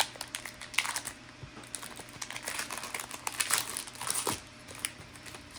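Foil wrapper of a Pokémon card booster pack crinkling in the hands as it is opened, with irregular small crackles and rustles.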